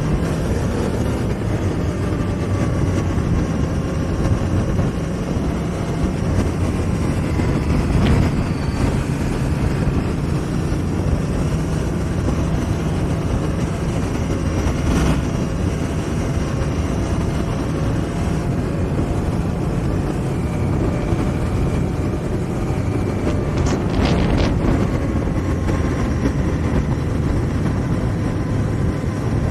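A 2018 Honda Africa Twin Adventure Sport's 998 cc parallel-twin engine running steadily at cruising speed on the move, mixed with wind rushing over the camera's microphone. There are a few brief sharp clicks, the clearest cluster about three quarters of the way through.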